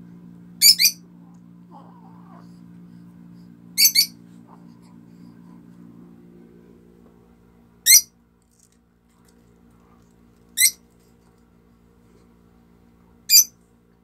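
Pet peach-faced lovebird giving five short, loud, shrill calls about every three seconds, the first two doubled, over a steady low hum.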